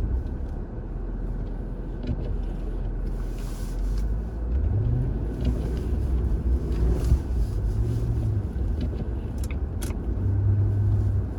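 A car engine running with a low, steady rumble. Its note rises about four and a half seconds in and steps up again near the end.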